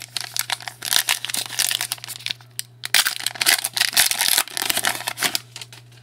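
A trading-card pack wrapper crinkling and tearing in the hands, in two spells of dense crackling rustle, as a hockey card pack is opened.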